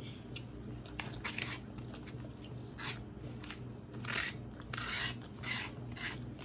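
Crunchy food being chewed close to the microphone: a string of short, crisp crunches that come faster and louder in the second half.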